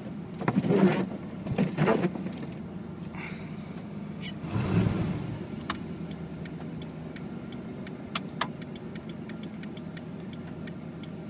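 A Chevrolet pickup's 350 small-block V8 idles steadily on gasoline, with a few louder bursts in the first two seconds and again around five seconds in. From about six seconds in, a turn-signal flasher clicks evenly, roughly three clicks a second.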